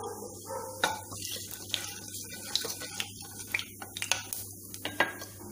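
Cumin seeds sizzling and crackling in hot oil in a kadhai, a steady hiss with many irregular sharp pops: the seeds spluttering as a tadka, the sign that the oil is hot enough.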